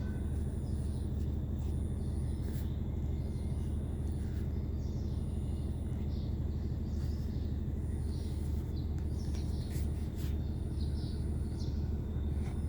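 Outdoor background noise: a steady low hum with faint bird chirps and a few light clicks.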